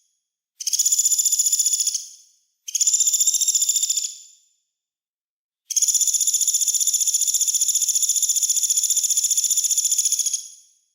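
A small songbird's very rapid, high, buzzy trill, sung in three phrases: two short ones of about a second and a half, then a long one of about five seconds.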